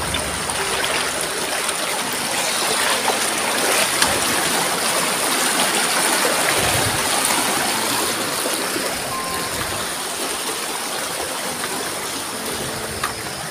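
Rushing water of a rocky stream spilling over small cascades between boulders, a steady rush that grows louder around the middle and eases toward the end.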